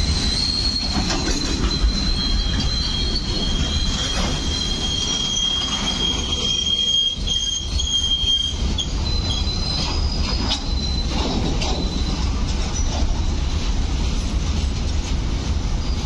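Indian Railways BOXN open-top freight wagons rolling past on steel wheels, with a steady rumble and occasional wheel clacks over rail joints. High thin wheel squeals ring through roughly the first ten seconds, then fade.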